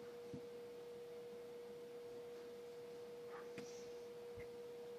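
Faint steady single-pitch hum, an electrical tone in the recording, with a few faint short clicks and thumps.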